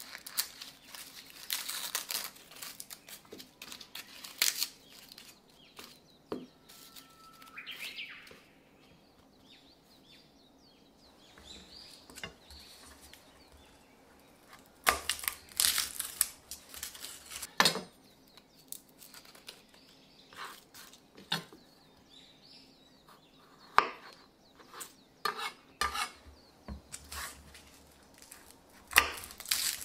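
Dry, papery garlic skins crinkling and tearing as cloves are pulled from the bulb and peeled by hand. Later, a kitchen knife taps and scrapes against a wooden cutting board in quick irregular clicks as the cloves are trimmed and peeled.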